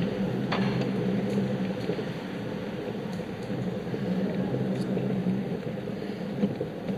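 Steady rumble and hum of a small vehicle rolling slowly over stone paving, with a brief click about half a second in and a sharp tap near the end.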